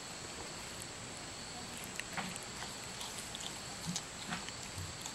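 Baby howler monkey's mouth noises: soft, scattered clicks and smacks as it works at solid food, over a steady background hiss with a thin, high, unbroken whine.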